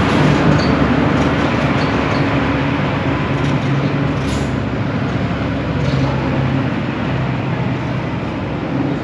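Steady, loud rumble of a running vehicle with a low engine hum, easing off slowly.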